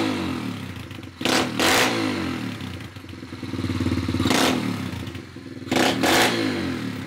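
SSR 125 pit bike's single-cylinder four-stroke engine revved from idle three times, its pitch climbing and falling back each time; so loud.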